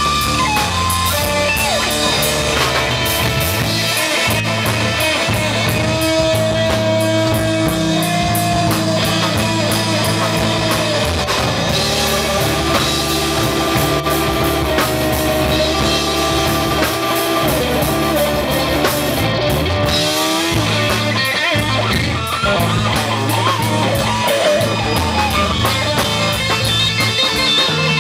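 Live blues-rock band: an amplified Stratocaster-style electric guitar plays lead, with long held notes and slides, over electric bass and a drum kit with cymbals.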